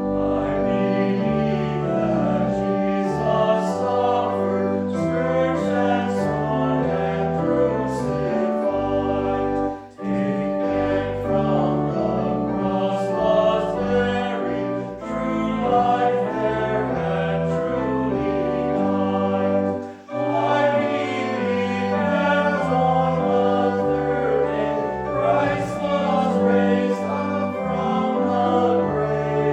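Choir singing a hymn, with short breaks between phrases about every ten seconds.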